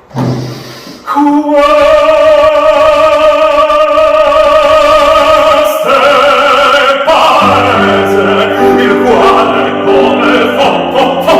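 Operatic singing at a concert: one voice holds a long note with vibrato, moves to a higher note about six seconds in, and from about seven and a half seconds a fuller accompaniment with several parts and a low bass comes in.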